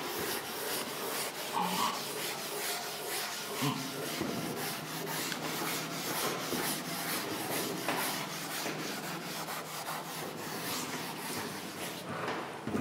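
Chalkboard duster rubbing chalk off a blackboard in rapid back-and-forth strokes, a scratchy swishing that stops near the end.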